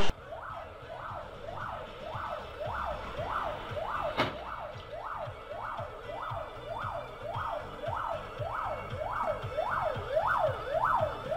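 Police car siren wailing, its pitch sweeping up and down about one and a half times a second and growing louder toward the end. A single sharp click about four seconds in.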